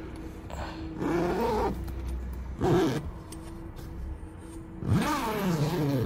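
Tent-door zipper being pulled open in three strokes, about a second in, near three seconds, and for the last second, each a buzz whose pitch slides up and down.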